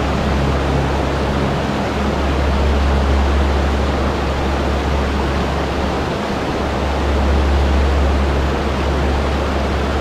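Mountain waterfall cascading over rocks: a steady, loud rush of water with a deep low rumble underneath.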